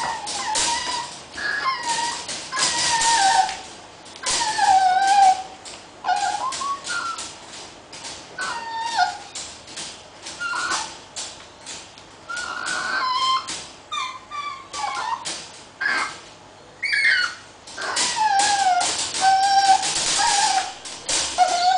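Papillon puppy whining and yelping over and over in short, wavering, high cries, wanting to be let out of its crate. Sharp clicks and rattles come between the cries as it paws at the wire crate door.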